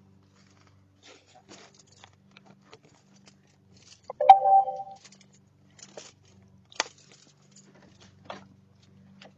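Doorbell camera's chime sounding once about four seconds in, a sharp click followed by a short tone of under a second. Faint scattered clicks and knocks over a low steady hum.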